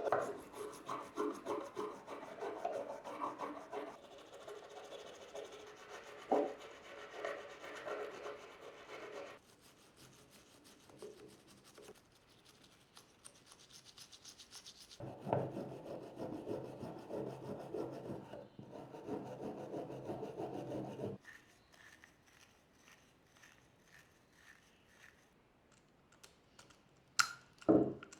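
Rapid rubbing strokes of scrubbing a Nespresso coffee machine part clean, in two spells of several seconds with a quieter stretch between them. A couple of sharp clicks come near the end.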